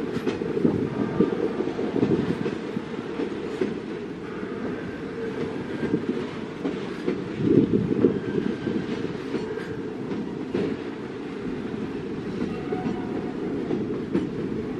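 Freight train's container wagons rolling past, their wheels clattering steadily over the rails, with a few brief faint wheel squeals.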